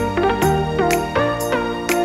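Background music: a melody with sliding notes over held bass notes, with light percussive strokes.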